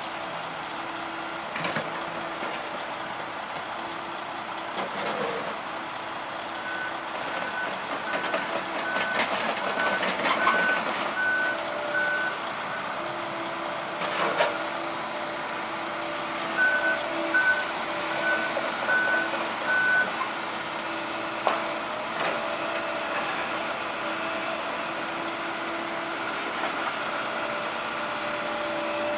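Heavy construction machinery's diesel engine running steadily while a backup alarm sounds in two runs of evenly spaced high beeps. A few sharp knocks come through, the clearest about 14 seconds in.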